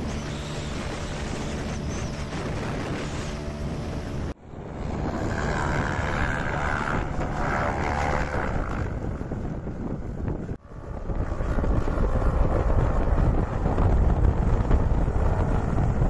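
Tornado airboat's engine and propeller running as it travels over snow, with wind buffeting the microphone. The sound cuts out sharply twice and grows louder over the last few seconds as the airboat comes closer.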